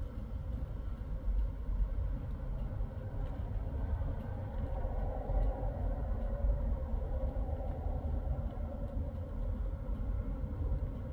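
Road traffic at a busy junction: a steady rumble of cars, vans and a bus passing and pulling away, with a faint engine hum rising a little about halfway through.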